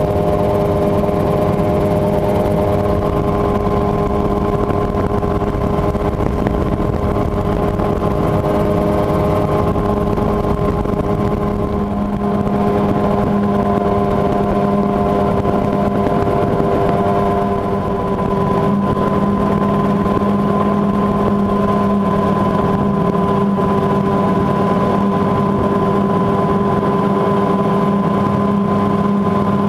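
Mosquito XE ultralight helicopter's two-stroke engine running steadily in cruise flight, heard from on board as a constant, loud drone. The level dips slightly twice.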